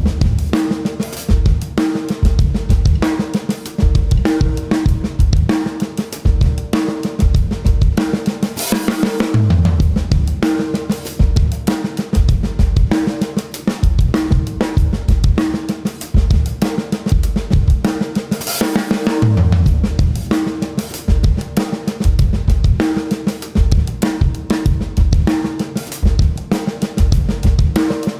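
Oriollo Bakar spun copper drum kit with a Joyful Noise Luminary snare being played as a steady groove: bass drum, snare, hi-hat and cymbals, with low tom fills coming back about every nine to ten seconds.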